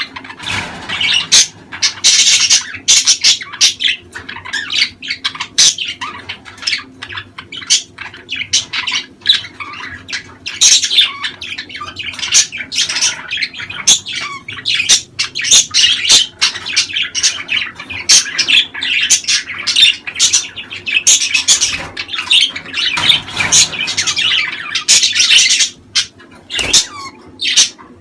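Budgerigars chattering and warbling in a dense, nearly unbroken run of quick chirps and squawks. These are the mating-season calls of a courting pair.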